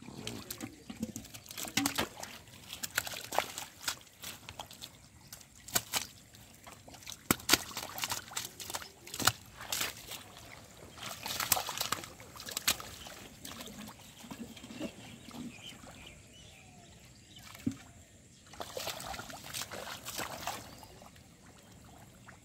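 Hands digging and scooping in shallow mud and water: irregular squelches, slaps and sloshes, some coming in short flurries.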